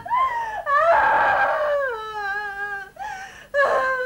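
A woman crying and wailing, with long high-pitched cries that waver and fall in pitch, broken by gasping sobs.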